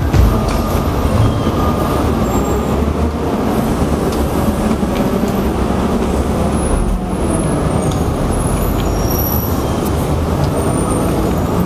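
Suitcase wheels rolling over a concrete walkway, a steady loud rumble, with brief high squeaks now and then.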